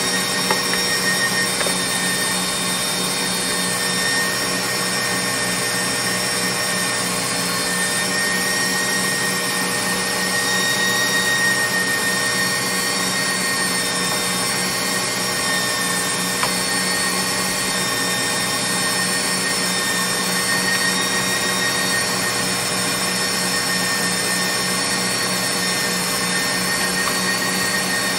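KitchenAid stand mixer motor running steadily, driving the Gourmet Pasta Press auger as it extrudes spaghetti: a constant motor hum with a high whine.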